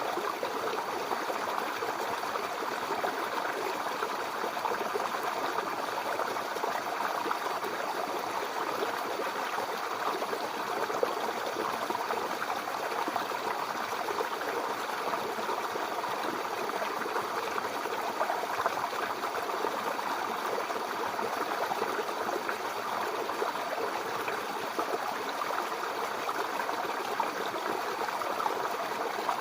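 Small brook babbling and trickling over stones, a steady, even rush of flowing water with fine splashing detail.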